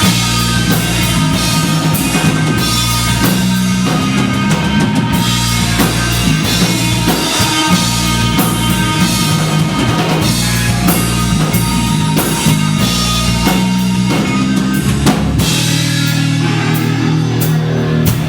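Live rock band playing an instrumental passage, the drum kit to the fore with kick and snare hits over steady bass and guitar.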